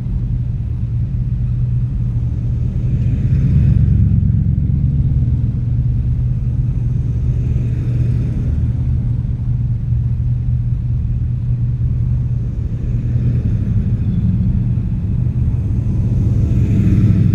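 Low, steady rumble of a 1941 Chevy's engine and road noise, heard from a camera mounted on the car's side. Oncoming cars swell past about four times, every four to five seconds.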